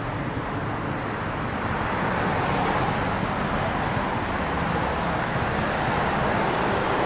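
Road traffic: passing cars' tyre and engine noise, growing louder about two seconds in.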